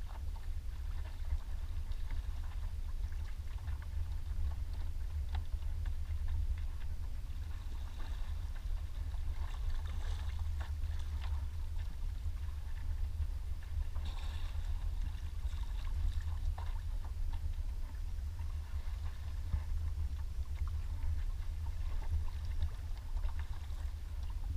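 Water lapping and splashing against the hull of a clear kayak, with a steady low wind rumble on the microphone.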